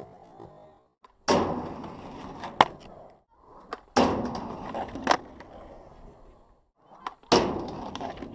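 Skateboard trucks grinding along a ledge and wheels rolling on concrete, three times over, each starting abruptly with a loud scrape and trailing off. Sharp clacks of the board cut through the rolling twice.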